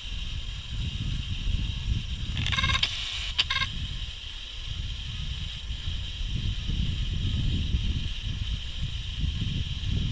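Wind buffeting the microphone in uneven gusts, over a steady high hiss. About two and a half seconds in, a brief high chirping sound lasts about a second.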